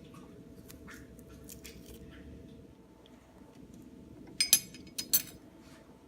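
Basil leaves being cut: faint small snips and clicks, then two sharp metallic clinks about half a second apart near the end.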